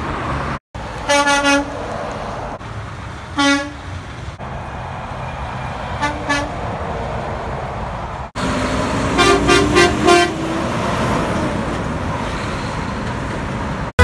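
Semi-truck air horns honking in short blasts: three single blasts a couple of seconds apart, then a quick run of several blasts from a passing tractor-trailer about nine seconds in, over steady road traffic noise.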